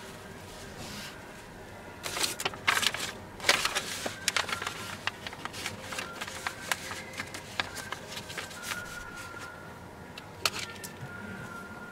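A sheet of paper being handled and smoothed flat over fabric: crackling, crinkling rustles that start about two seconds in, loudest over the next couple of seconds, then lighter crinkles and taps.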